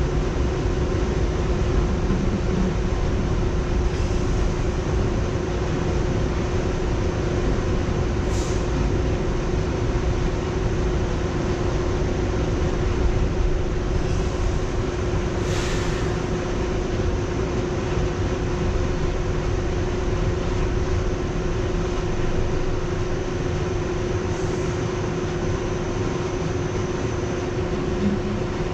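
R62A subway train running, heard from inside the front car: a steady rumble of wheels on rail over a constant hum. Brief high squeals come about 8 and 16 seconds in.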